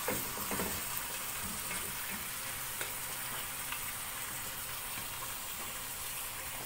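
Skinless chicken pieces sizzling steadily in melted butter in a pot, being seared to seal them and brown the outside. A wooden spoon stirs them with a few soft knocks in the first second or so.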